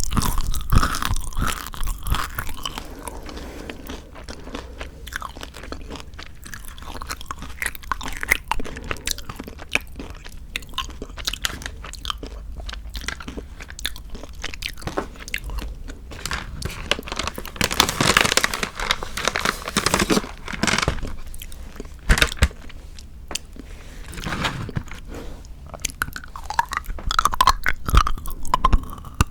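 Close-miked chewing and crunching of chocolate: irregular crisp crackles and bites, busiest about two-thirds of the way through.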